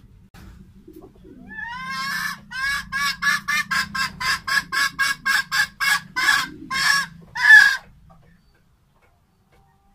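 Red junglefowl hen cackling: a rising note, then a quick run of short clucks, about five a second, ending in three longer, louder squawks; it stops about eight seconds in.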